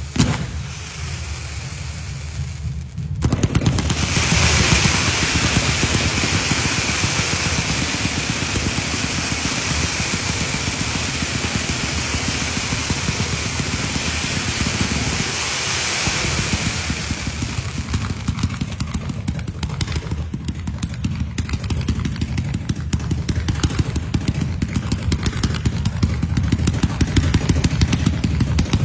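Fireworks cakes firing rapid volleys of comets: a dense stream of launch pops over a hissing rush. It grows much louder about three seconds in, and from about eighteen seconds on the launches come as more distinct rapid shots.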